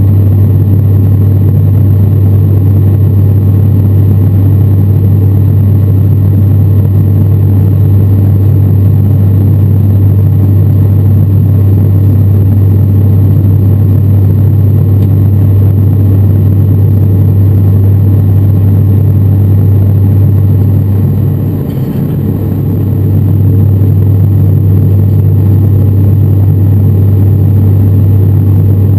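Inside the cabin of an ATR 72-600 in its climb: the Pratt & Whitney PW127M turboprop and its six-bladed propeller give a loud, steady, deep drone. The drone dips briefly about three-quarters of the way through, then returns to the same level.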